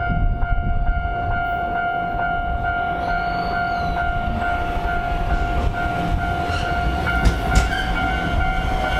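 Japanese railroad level-crossing alarm ringing its repeating electronic "kan-kan" bell while a train passes with a low rumble.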